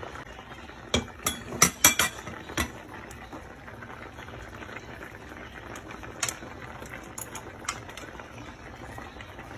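Crab and vegetable stew in coconut milk boiling in a pot, a steady bubbling hiss. A quick run of sharp clicks and knocks comes about a second in, with single ones again around six and eight seconds, like a utensil against the pot.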